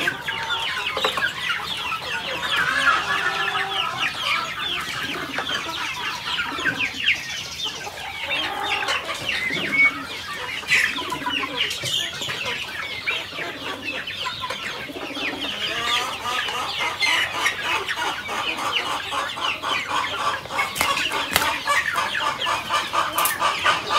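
A flock of free-range chickens clucking continuously, many birds calling over one another, with the calls growing busier and more rapid in the last several seconds.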